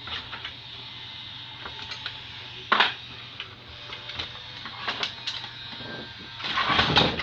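Scattered clicks and knocks from an Epson inkjet printer being worked on, over a steady hum. A sharp knock comes about three seconds in and a cluster of rattling knocks near the end.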